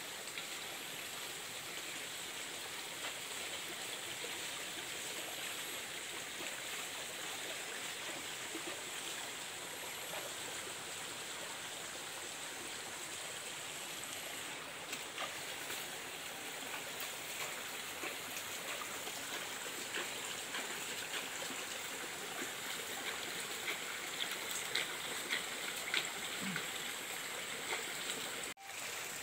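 Small rocky forest stream running steadily, with a few short knocks or splashes near the end.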